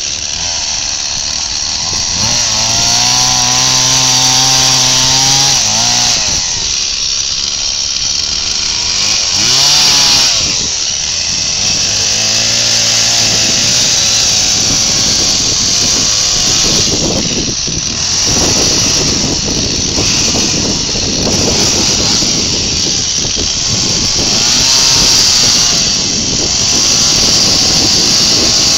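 Two-stroke chainsaw cutting into the top of a log section during chainsaw carving: the engine runs throughout, its pitch falling back and climbing again as the saw eases off and bites into the wood.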